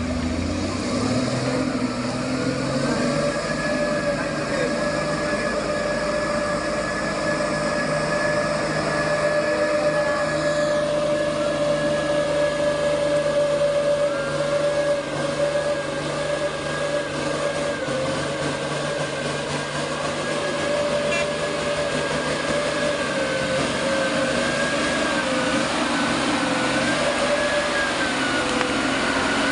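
Mitsubishi Fuso truck's diesel engine labouring under a heavy load of oil palm fruit bunches, pulling slowly and steadily with a constant whine over the engine note as the truck comes close and passes.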